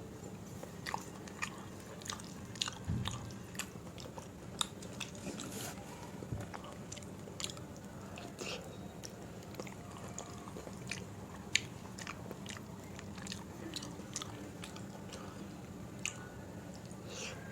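Close-up eating sounds of a person chewing and smacking a soft meal of dal and rice, with many irregular sharp mouth clicks.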